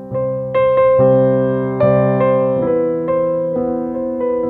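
Background piano music: notes struck one after another, each ringing and fading before the next.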